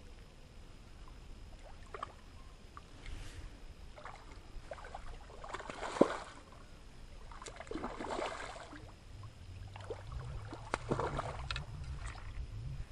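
A hooked carp splashing and thrashing at the water's surface in several bursts, the loudest a sharp slap about six seconds in.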